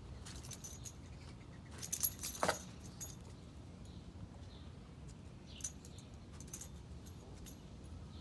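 Metal ID tags on a dog's collar jingling in quick clusters as the dogs move about, loudest about two seconds in and again briefly later. A short falling squeak sounds among the clinks about two and a half seconds in.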